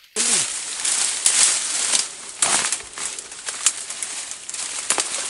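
Leaves and brush rustling and crackling close to the microphone, with many sharp little clicks, after a short falling swoop at the very start.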